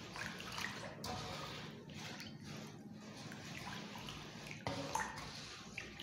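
Water sloshing and splashing as a hand stirs and rubs rice grains in a metal basin, washing the rice, with a sharp tap about three-quarters of the way through.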